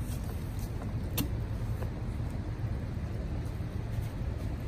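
An engine running steadily nearby, a low continuous rumble, with one sharp metallic click about a second in.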